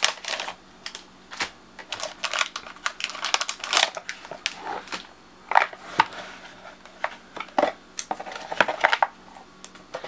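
Stacks of Cards Against Humanity playing cards being handled and slid into a cardboard storage box: irregular clicks, taps and rustling as card edges knock against each other and the cardboard walls.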